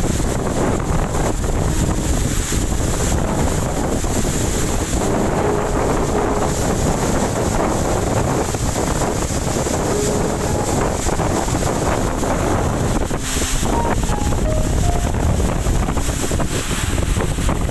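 Loud, steady rush of a tall waterfall pouring onto rocks into its plunge pool, with wind and spray buffeting the microphone.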